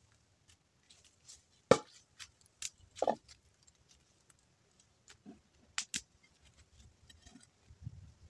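Scattered light knocks and clicks of objects being handled, with footsteps on dry leaf litter; two sharper knocks stand out about two and three seconds in.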